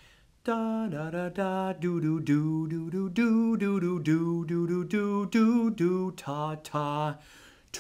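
A low male voice singing a tune without accompaniment, in short stepped notes and syllables, with a brief pause near the end.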